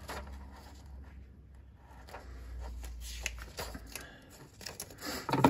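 Paper pages of a printed instruction manual being leafed through and turned by hand: scattered rustles and flicks of paper, with a louder one near the end.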